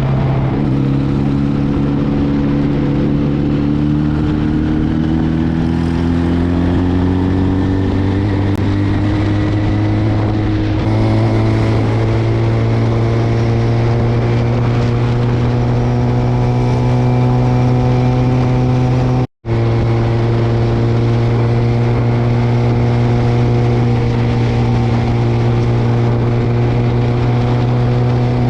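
Cafe racer motorcycle engine running under way, its pitch climbing slowly for the first ten seconds or so and then holding steady. The sound cuts out for an instant about two-thirds of the way through.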